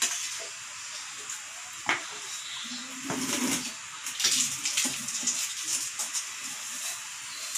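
A metal ladle stirring a pot of mung bean soup: wet sloshing over a steady hiss, a sharp clink of the ladle on the pot about two seconds in, and a run of clinks and rattles in the second half.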